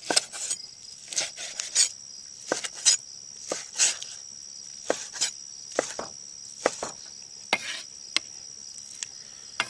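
Knife cutting sirloin tip steak into large bite-sized pieces on a cutting board: irregular knocks of the blade hitting the board, about two a second, with soft scrapes between. A steady high insect trill runs underneath.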